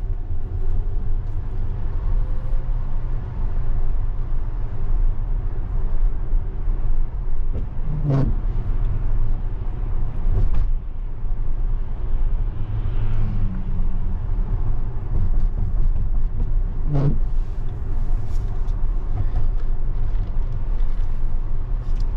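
Road noise heard inside a Tesla electric car driving on a wet road: a steady low rumble with tyre hiss. There are three short thumps, about eight seconds in, two seconds later, and again near seventeen seconds.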